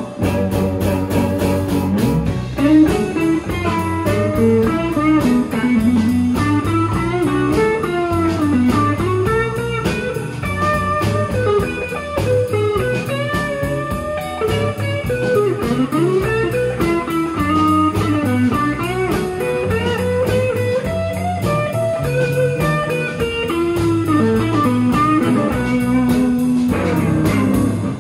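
Live blues band playing: an electric guitar takes a solo of bending single-note lines over bass and drums.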